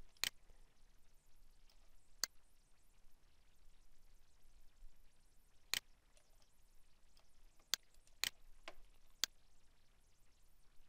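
A handful of sharp computer mouse clicks, spaced irregularly with a quick cluster near the end, over quiet room tone.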